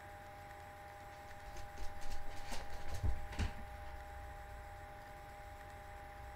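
A couple of seconds of rustling with a few soft knocks, loudest about three seconds in, over a steady faint hum.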